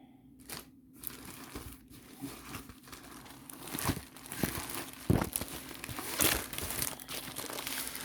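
Diamond painting kit packaging crinkling and rustling as it is handled and unpacked, with a few sharp knocks, the loudest a little past the middle.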